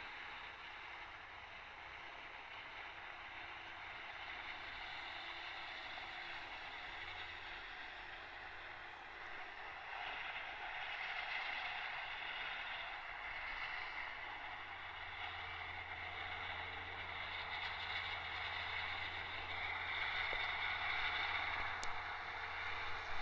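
Tractor with front and rear mowers cutting grass at a distance: a steady engine-and-mower drone with a thin high whine over it, gradually getting louder.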